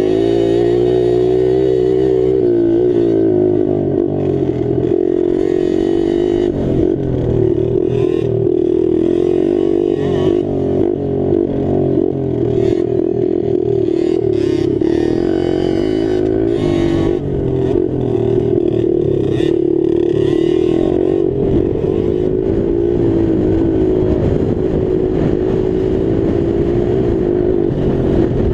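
Motocross bike engine heard from a helmet-mounted camera, revving up and falling back again and again as the rider accelerates and backs off around a dirt track. Short knocks and clatter sound through it.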